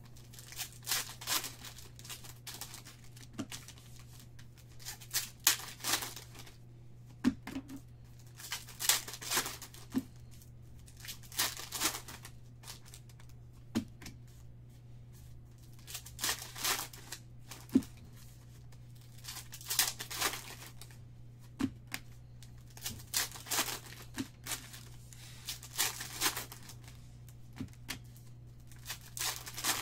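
Foil packs of football trading cards being torn open and crinkled by hand, in short repeated bursts, over a low steady hum.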